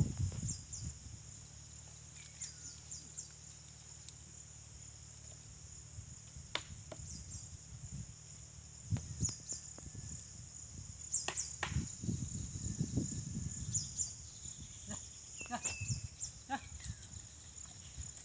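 A pair of bullocks pulling a wooden plough through dry soil: scattered soft knocks and thuds, heard over a steady high insect drone with short chirps on top of it.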